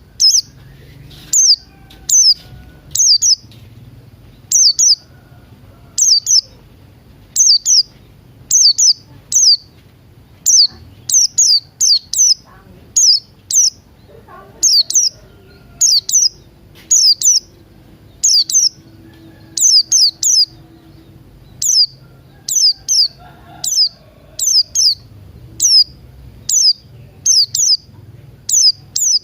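Small songbird giving short, high chirps that each sweep downward in pitch, repeated about once or twice a second, often in quick pairs or threes.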